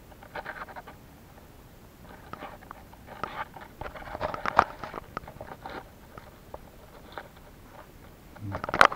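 Hands and a thin stick scratching and poking at dry, crumbly soil, twigs and leaf litter while digging out a burrow. The scratches come irregularly and are busiest around the middle, with one sharp click near the end.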